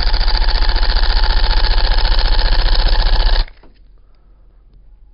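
Electric loop pile tufting gun running, its needle punching yarn into the backing cloth with a fast, even rattling pulse. It cuts off suddenly about three and a half seconds in, leaving a few faint clicks.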